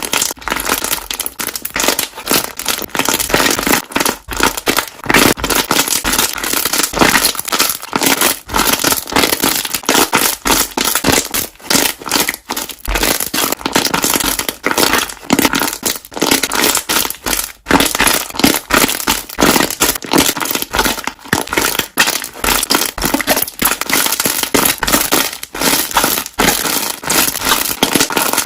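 Air bubbles popping one after another in a dense, continuous crackle of small sharp pops.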